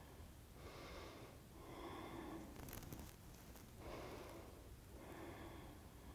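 Faint, slow human breathing: two breaths, each an audible in-breath followed by an out-breath.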